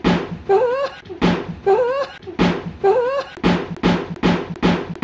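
Comic background music: a drum beat at about two hits a second, with a short sliding, wavering tone repeated three times in the first three seconds. The hits come faster, like a drum fill, near the end.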